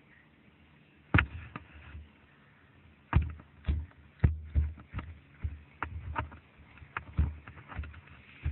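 Irregular thumps and knocks: one about a second in, then many in quick succession through the second half.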